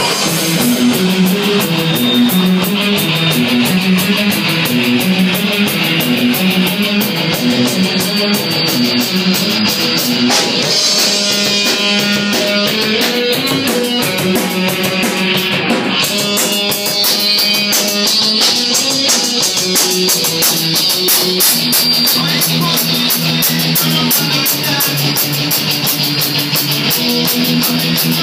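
Rock band playing: electric guitar riffing over a drum kit with steady cymbal strokes, the riff shifting to a new pattern partway through.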